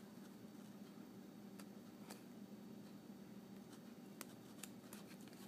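A few faint snips of small scissors cutting through the stitching of a fabric seam, heard as soft, scattered clicks over near silence.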